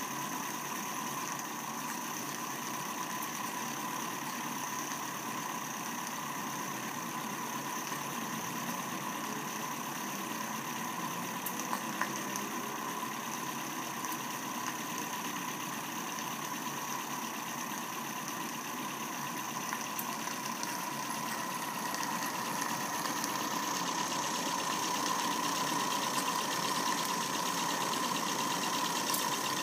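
Live-steam model Climax locomotive's vertical twin-cylinder steam engine running steadily on a test run, a continuous fast mechanical beat with hiss. It grows somewhat louder about three-quarters of the way through.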